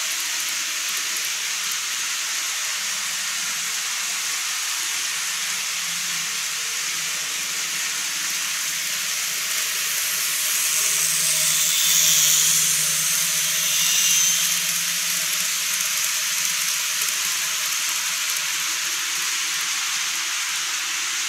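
N-gauge model Keikyu 1000-series train running along its track over a plastic truss bridge: a steady, hissing rattle of wheels on rail with a faint motor hum, growing louder about halfway through.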